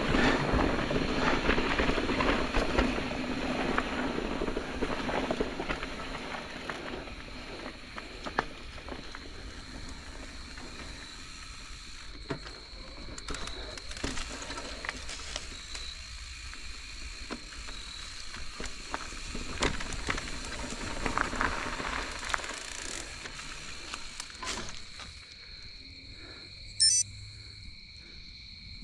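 Electric mountain bike riding over a leaf-covered dirt trail: tyres rolling and crackling over leaves, with knocks and rattles from the bike, loudest in the first few seconds. Under it runs a steady insect chirring at two high pitches, which is left nearly alone when the riding noise dies away near the end. A brief sharp noise comes shortly before the end.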